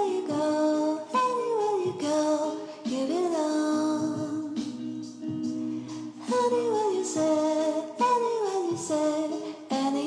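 Background music: a female vocal melody of repeated falling phrases over a steady instrumental backing.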